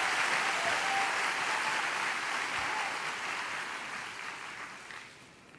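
Audience applauding in a hall, dying away about five seconds in.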